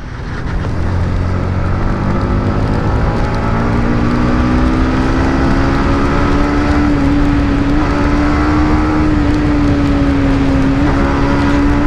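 Motorcycle engine pulling under way while riding, its pitch rising over the first couple of seconds and then holding steady at a constant cruise.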